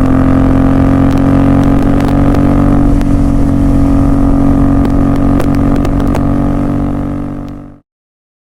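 Royal Enfield Continental GT 650's parallel-twin engine running through Red Rooster aftermarket exhausts, holding a steady engine speed with a few faint ticks. It fades out and stops near the end.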